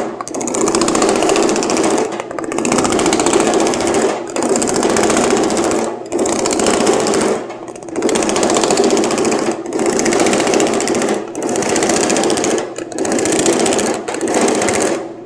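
Dake power hammer pounding rapidly on a soft aluminium panel through thumbnail shrinking dies, in bursts of about two seconds with short pauses between them as the panel is moved along for each stroke of the pass. The hammering stops just before the end.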